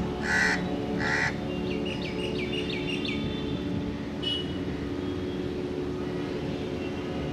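Two loud, rough bird calls about two thirds of a second apart, then a different bird's quick series of about six short falling chirps, and one more short call a second later. A steady low hum runs underneath.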